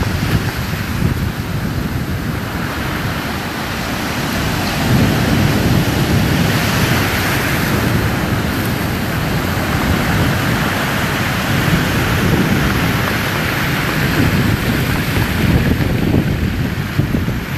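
Rough sea with waves breaking and washing in surges, mixed with strong wind buffeting the microphone as a deep rumble.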